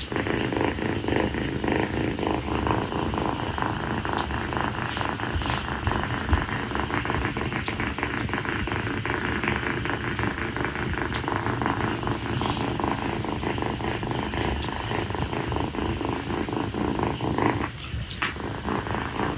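A young calico kitten purring steadily and loudly, close to the microphone, with a brief lull near the end.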